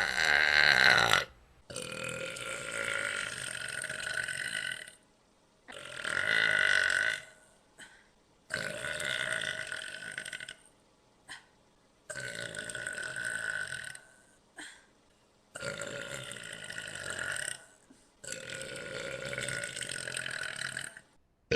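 A person burping repeatedly: about seven long, drawn-out belches, each one to three seconds long with short pauses between. The first is the loudest and drops in pitch.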